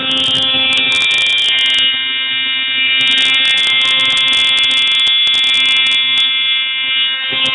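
A high-energy (190 mJ) moped ignition firing a bench spark gap rapidly, driven by a function generator: a loud, steady buzz with a high crackle that comes and goes.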